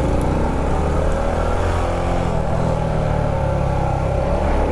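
Motorcycle engine running steadily at low speed in slow traffic, with a constant low rumble of surrounding vehicles.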